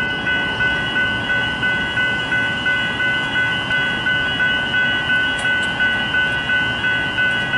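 Level crossing warning bell ringing in a steady, even rhythm of about two strokes a second, with a train running into the station beneath it.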